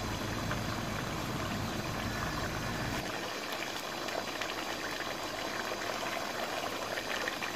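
Mutton curry bubbling steadily at the boil in a large metal pot. A low hum underneath cuts out about three seconds in.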